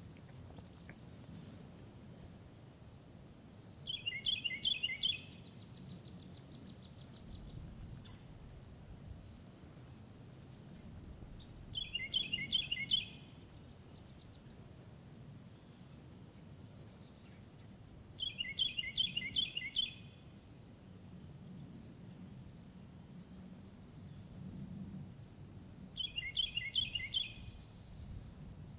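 A songbird singing the same short song four times, about seven to eight seconds apart; each song is a quick run of five or six repeated high phrases, over a faint, steady low background rumble.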